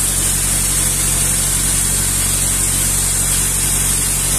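Fishing boat's engine running steadily under way, a low even drone, with a constant hiss of wind and water rushing past the hull.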